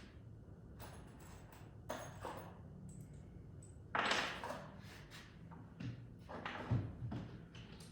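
Scattered knocks and clunks of work being handled, the loudest about four seconds in and another sharp one just before seven seconds.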